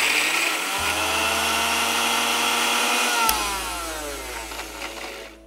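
Electric mixer grinder running, grinding soaked white sesame seeds with garlic and oil into a paste. About three seconds in it stops with a click and winds down with a falling whine.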